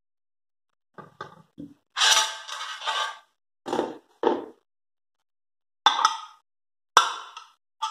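Metal pressure-cooker parts, the lid and a perforated separator plate, clinking and knocking against each other and the box as they are handled. There are about half a dozen separate clanks with a brief metallic ring, and a longer clatter about two seconds in.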